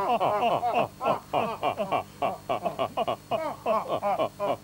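A man's voice in a fast run of short syllables, each falling in pitch.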